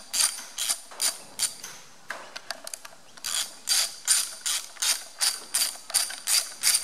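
Socket ratchet clicking in short runs, about two to three strokes a second, as the screws holding the injection pump's timing gear are undone.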